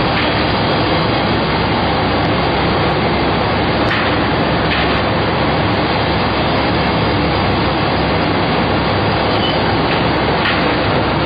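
Baby diaper production machinery running: a steady, dense mechanical din, with a few faint clicks.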